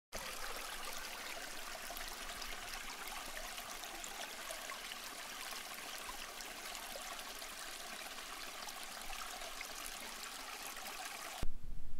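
Steady running water, like a trickling stream, that cuts off abruptly about a second before the end. A brief bump follows it.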